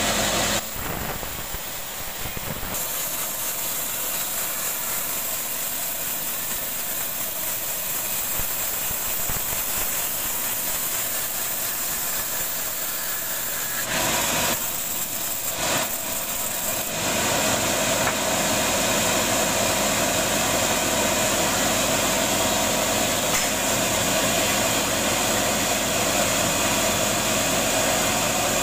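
Bandsaw mill running steadily while it saws a rambutan log. Its low running hum drops away about a second in and comes back strongly a little over halfway through.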